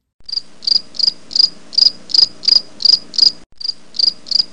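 Cricket-chirp sound effect: a steady run of high chirps, about three a second, with a brief break about three and a half seconds in. It is the comic "crickets" cue for a blank, thinking pause.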